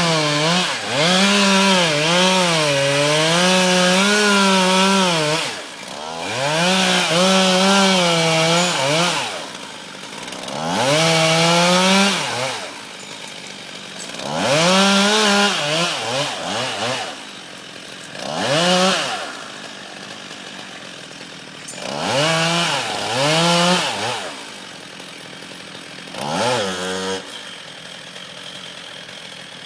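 Chainsaw revving hard in repeated bursts of a few seconds, its pitch wavering as it works through a big tree, and dropping back to a lower run between cuts. A last short burst comes near the end, then it settles low.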